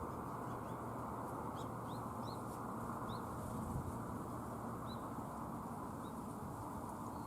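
Faint, short, high chirps from a small bird, about eight scattered across several seconds, most in a cluster early on. They sit over a steady background hiss.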